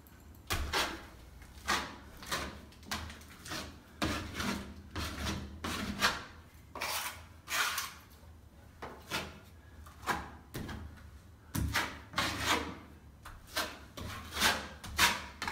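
Steel plastering knife scraping across wet plaster on a ceiling patch in repeated short strokes, irregular, about one or two a second, as a fresh coat is skimmed on.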